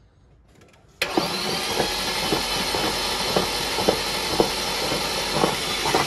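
Starter motor cranking a BMW S50 inline-six with its spark plugs out for a wet compression test, after oil has been squirted into cylinder one. It starts suddenly about a second in, a steady whirring with a regular pulse about twice a second.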